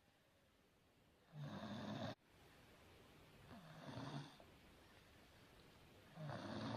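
A baby snoring in sleep: three low snoring breaths about two and a half seconds apart.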